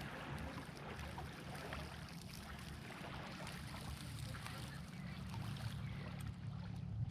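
Lakeshore water lapping softly, with a steady low hum from a distant motor underneath.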